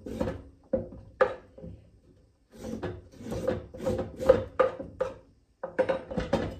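A spoon scraping the seeds out of a halved, overgrown cucumber: repeated short scrapes, pausing briefly about two seconds in and again near the end.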